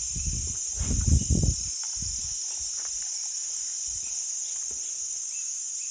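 Steady high-pitched buzz of forest insects, with footsteps on a leafy dirt path in the first second and a half, then only a few faint ticks.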